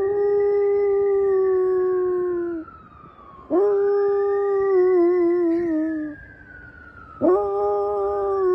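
Samoyed dog howling along with a wailing siren: three long howls, each starting with a quick rise and wavering as it fades. The siren's slow rise and fall runs fainter underneath.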